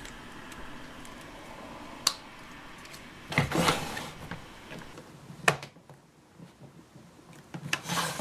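Hard plastic toy parts of a Play-Doh Perfect Twist Ice Cream playset being handled and snapped together: a rustle and a few sharp clicks, the sharpest about five and a half seconds in, with more clicks near the end, as the cone dispenser is fitted onto the side of the tower.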